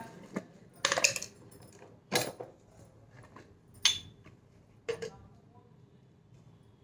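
Glass kitchen storage jars and lids being handled on a counter: four or five separate knocks and clinks about a second apart, one of them with a short glassy ring.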